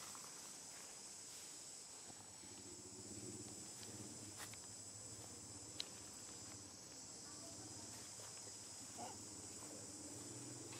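Faint, steady high-pitched drone of insects in the forest trees, with one sharp click a little past the middle.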